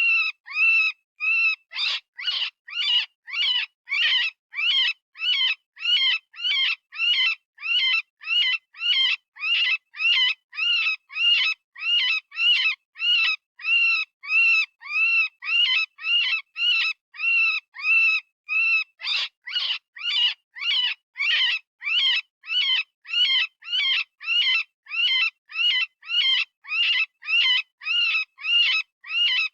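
Rabbit distress call from predator-calling software: a long run of short, high-pitched screams, about two a second, each rising and falling in pitch, with brief gaps between. It is the cry a rabbit gives when caught or in pain.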